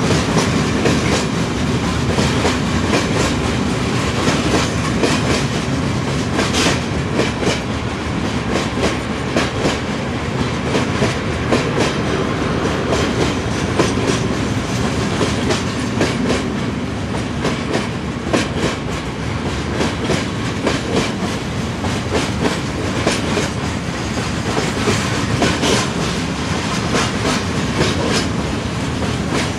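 Loaded coal train of open freight wagons rolling past: a steady rumble of wheels on rail, broken by a continual series of sharp clicks as the wheels cross rail joints.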